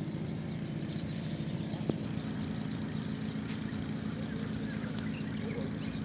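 An engine running steadily, with a single sharp click about two seconds in.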